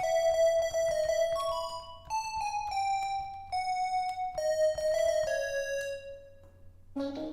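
EASYPLAY 1s pocket MIDI keyboard playing a simple melody of single notes in one of its built-in sound samples. The melody ends on a longer held note about six seconds in, and a short knock follows near the end.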